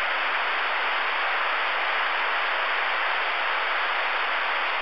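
Steady radio static hissing from a receiver's speaker, with the channel open and no one transmitting.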